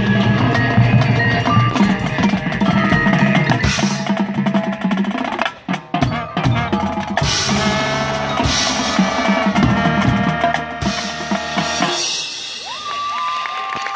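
High school marching band playing with heavy percussion: snare and bass drums, drum rolls and mallet percussion under held brass notes. The music stops about twelve seconds in and crowd applause follows.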